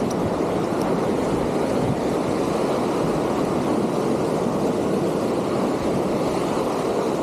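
Sea water washing and surging against the shore: a steady rushing noise.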